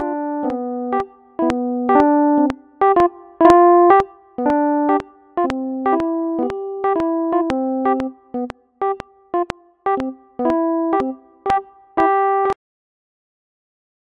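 Keyboard music with a piano-like tone: a simple melody of separate held notes and chords at about two notes a second, thinning out near the end and stopping about twelve and a half seconds in.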